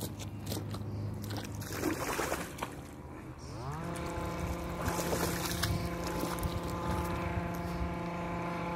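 A motor comes up to speed a few seconds in, its pitch rising briefly and then running steady. Before that, a few splashes in shallow water.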